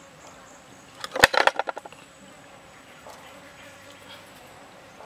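A short rattling clatter of metal about a second in, as the metal tray holding the marinated duck is handled, over a faint, steady, high insect drone.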